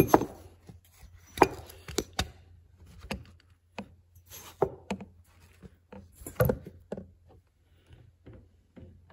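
Handling noise from a phone being moved about and propped up on a wooden workbench among wooden blocks: scattered taps, knocks and rubs. Several sharper knocks come in the first two seconds, with another about six and a half seconds in.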